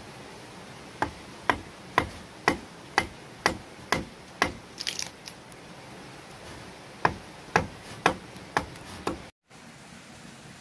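A hand tool striking wood in steady blows about two a second: eight strikes, a few lighter taps, then after a pause five more strikes.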